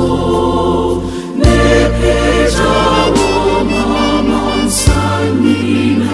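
Gospel vocal group singing a praise song in Akan (Twi) in soprano, alto, tenor and bass parts over an electronic arranger keyboard holding low sustained notes. Two sharp hits sound in the accompaniment, about a second and a half in and near five seconds.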